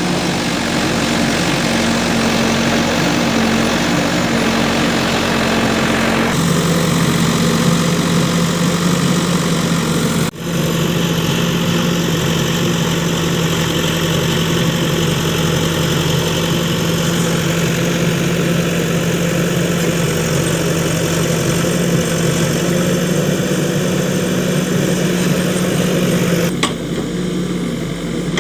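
Diesel engine of a tractor-type working machine running steadily. Its sound shifts abruptly about six seconds in and near the end, with a brief dropout about ten seconds in.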